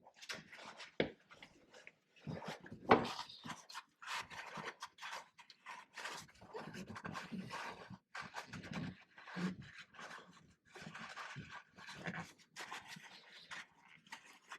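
Irregular rustling, scraping and small knocks of hands at work, with one sharp knock about three seconds in.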